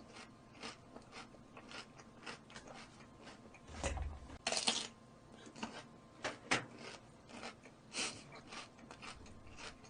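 A person chewing and biting roast chicken close to the microphone: a run of small wet mouth clicks, with a few louder bites about four to five seconds in and again near the end.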